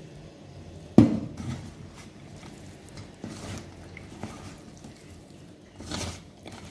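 A hand squeezing and kneading shredded cabbage and onion with gram flour and rice flour in a stainless steel bowl: soft, wet rustling and squishing. A sharp knock about a second in is the loudest sound, followed by several softer knocks and a louder rustle near the end.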